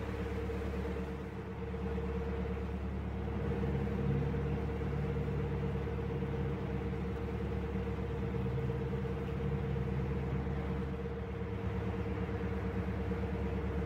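Narrowboat's inboard diesel engine running steadily as the boat moves slowly along the canal, a low even hum with a faint higher drone.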